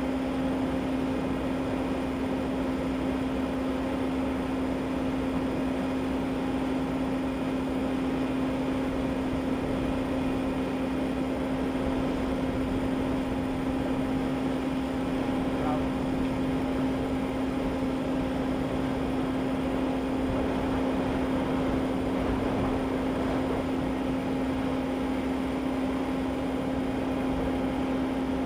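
Steady machine hum at one constant pitch over a broad rushing noise.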